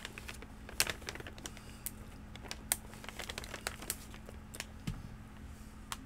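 A man chewing peppered beef jerky, with mouth and lip smacks coming as irregular soft clicks and crackles.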